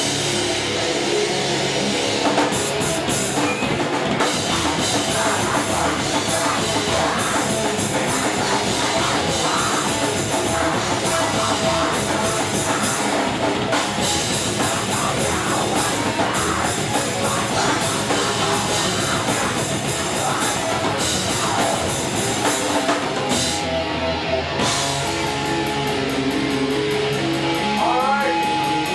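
Thrash metal band playing at full tilt: distorted electric guitars over a pounding drum kit, loud and unbroken.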